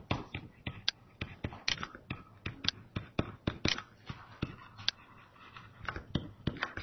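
Stylus tapping and scratching on a tablet computer's screen during handwriting: an irregular run of small ticks, several a second.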